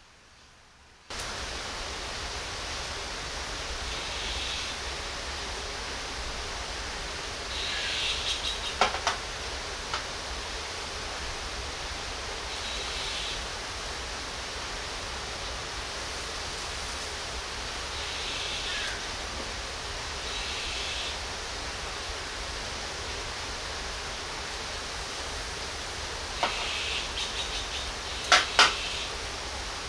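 Pork belly sizzling on a grill over charcoal: a steady hiss that starts abruptly about a second in, with bursts of higher crackling and a few sharp pops, two of them loudest, about nine seconds in and near the end.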